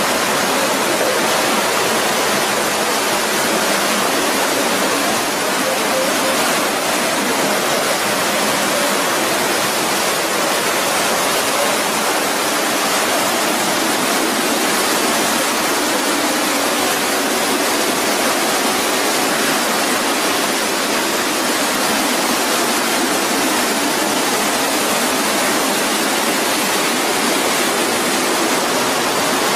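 Small waterfall cascading into a rock pool: a steady, unbroken rush of falling water.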